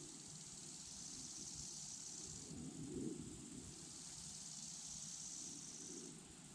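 Wind buffeting the microphone in low gusts, strongest about three seconds in, under a high, thin chorus of crickets that fades twice.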